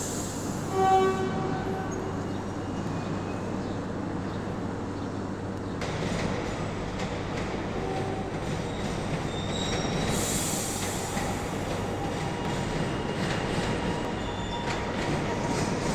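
High Capacity Metro Train (HCMT) electric multiple unit. A short horn blast sounds about a second in, then the train pulls out of the platform with its traction motors whining in rising tones and its wheels running on the rails.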